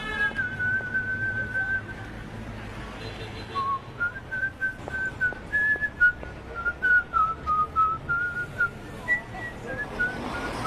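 A whistled melody, a single line stepping from note to note as the intro of a song, over a low steady backing.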